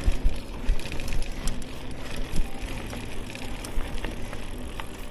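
Wind buffeting the microphone of a mountain bike rider's camera in a sandstorm: an uneven, gusty rumble, with scattered clicks and rattles from the bike.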